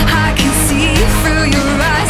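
Background music: a rock-pop song with a singing voice over bass and a steady drum beat.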